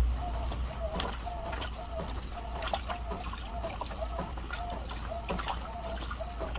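Hotpoint washing machine running, its drum turning with water sloshing and scattered clicks, and a short squeak repeating about twice a second.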